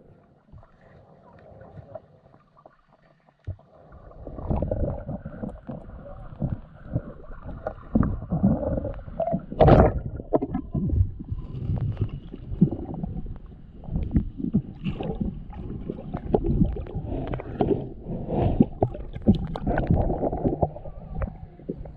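Water sloshing and gurgling right against the microphone, with many knocks and clicks, starting about four seconds in after a quieter stretch.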